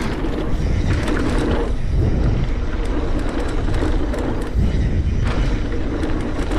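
Specialized Stumpjumper Evo mountain bike descending a dirt jump trail at speed: wind rushing over the camera microphone, knobby tyres rolling on packed dirt, and small knocks and rattles from the bike over bumps.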